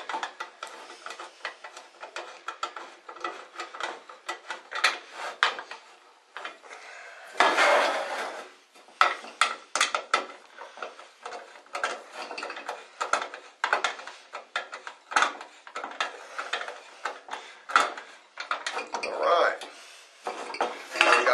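A hand nut driver turning screws back into a high bay light fixture's housing, with many small metallic clicks, scrapes and clatters as the parts are handled on a table. About seven and a half seconds in there is a longer scraping rustle.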